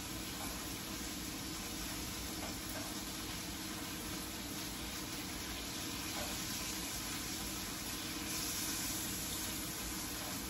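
Food sizzling in a frying pan on a gas stove: a steady hiss that briefly grows a little louder and brighter about eight seconds in.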